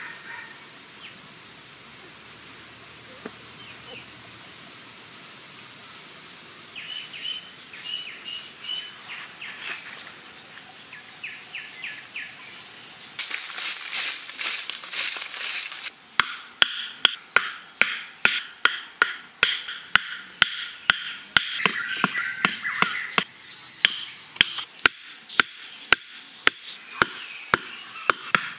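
Birds chirping against quiet forest ambience. About halfway through, a steady run of sharp knocks begins, about two a second: bamboo stakes being driven into the ground with a hand tool, with the birds still calling.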